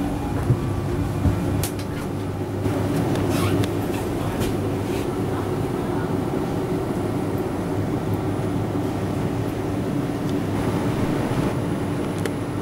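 Steady hum of a Stadler Regio-Dosto (SBB RABe 511) double-deck electric train standing with its onboard equipment running, with a few faint clicks and knocks in the first few seconds.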